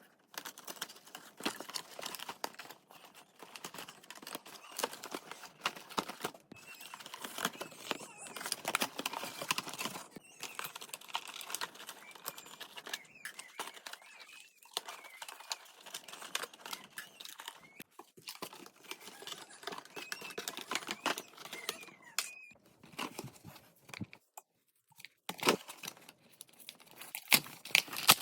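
Packaging crinkling and rustling as a toy cash register's accessories are unpacked from their box, with many small clicks and clacks of plastic and cardboard pieces, in uneven spells with brief pauses.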